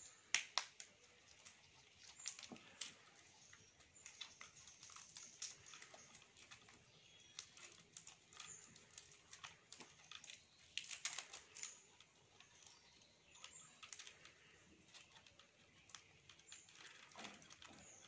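Faint, irregular clicks, scrapes and rustles of hands pulling and bending insulated wire leads on an old step-up transformer, with a denser flurry of clicks about eleven seconds in.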